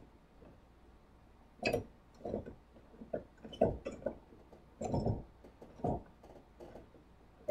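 Wooden handscrew clamp being opened by hand: its handles and threaded spindles are turned, giving a scattered series of small, irregular wooden knocks and clicks.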